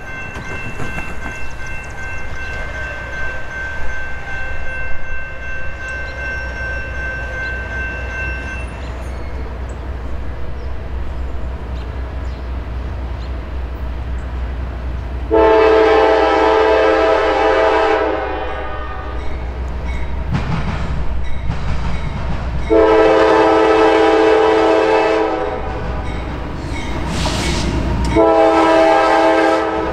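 Norfolk Southern GE AC44C6M diesel locomotive approaching with a low steady rumble, sounding its air horn in the grade-crossing pattern: two long blasts, a short one, and a long one held past the end.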